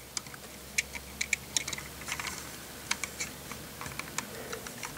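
Light, irregular plastic clicks and taps as a LEGO minifigure is pushed into the seat of a LEGO car, fingers knocking against the bricks and the lifted roof piece.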